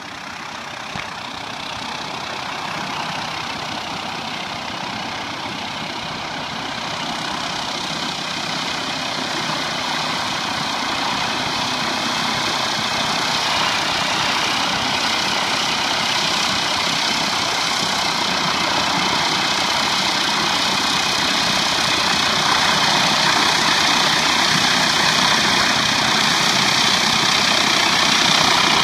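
Rotary surface cleaner on a hot-water pressure washer working over wet pavers: a steady hiss of high-pressure spray from under its hood, over the pressure washer's running engine, with a thin steady high whine. It grows gradually louder.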